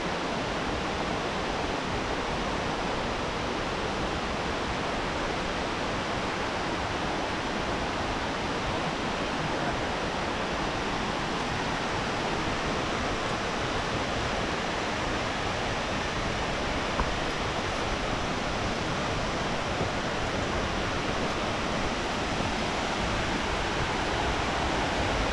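Rushing water, a steady, even rush with no break.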